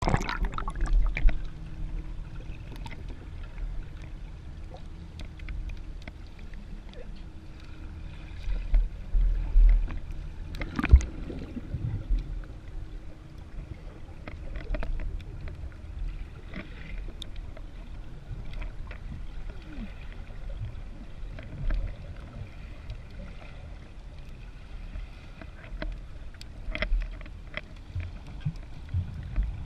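Muffled underwater sound heard through a GoPro's waterproof housing: a low rumble of moving water with scattered knocks and bubbling, the loudest knock about eleven seconds in.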